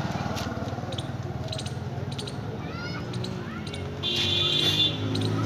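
A puppy crunching dry kibble from a steel plate, heard as short crisp clicks over a steady low engine hum. A high squeak sounds briefly about four seconds in.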